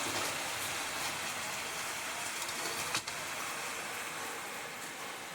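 Epson L3250 inkjet printer running a copy, a steady mechanical whir and hiss with one sharp click about three seconds in.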